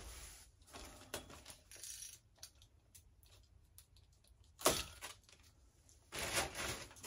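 Scattered light clicks and taps, a sharp knock about two-thirds of the way through and a short rustle near the end: handling noise around a plastic-wrapped folded canopy frame and cardboard packaging.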